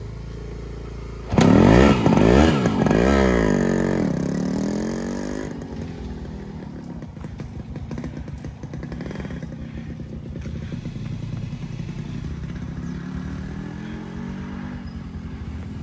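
Yamaha RX 115's two-stroke single-cylinder engine idling, then revved hard several times about a second in, the pitch sweeping up and down, before dropping back to an uneven idle.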